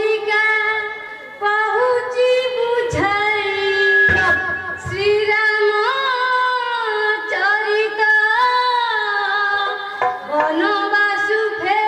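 A girl singing a devotional song line in long, ornamented phrases with gliding notes, over musical accompaniment.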